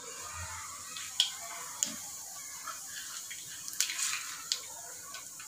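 Mustard seeds and cumin seeds sizzling in hot oil in a pressure cooker, a steady hiss with a few sharp pops and crackles scattered through it.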